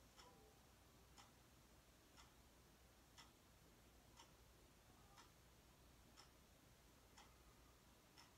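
Near silence, with a faint, sharp tick repeating evenly about once a second.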